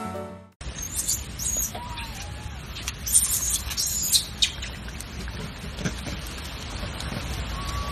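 Outdoor ambience with a steady low hum and birds chirping high and briefly, mostly in the first half, plus a few faint squeaks and clicks.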